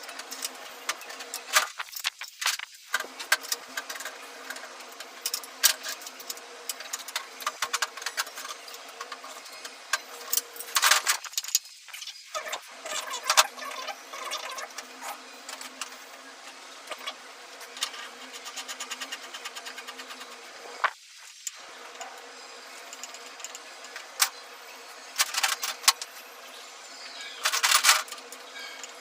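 Irregular metallic clicks and clinks, like tools and small metal parts being handled during repair work, over a steady low hum that drops out briefly three times.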